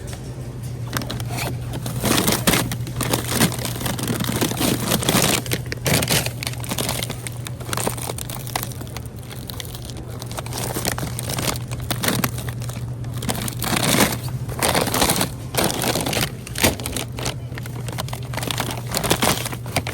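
Irregular crinkling and crackling handling noises, many short strokes in quick succession, over a steady low hum.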